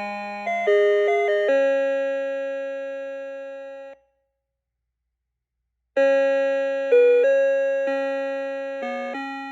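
Electronic chime tones of an Elgin melody clock playing a tune: each note struck and fading, the tune ending on a long held note that cuts off about four seconds in. After two seconds of silence the next tune starts.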